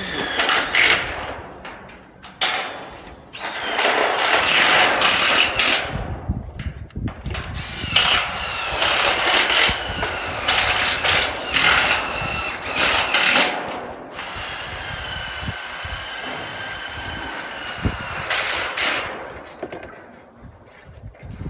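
Power screw gun driving self-drilling screws into light-gauge galvanized steel roof truss members, in a run of loud bursts with short pauses between them. One longer burst of several seconds, with a high whine, comes past the middle.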